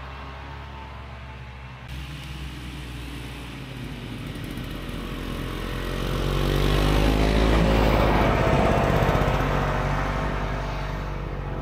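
1967 Ski-Doo snowmobile's two-stroke engine drawing nearer and passing close by, growing louder to a peak past the middle and dropping in pitch and level as it pulls away.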